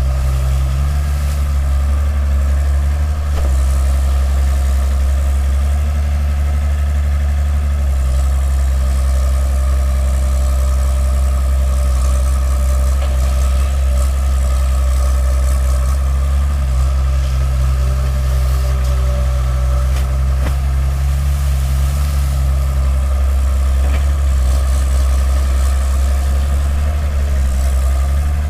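Diesel engine of a pontoon-mounted Hitachi excavator running steadily with a deep, even hum, its tone shifting a little a few times as the machine works.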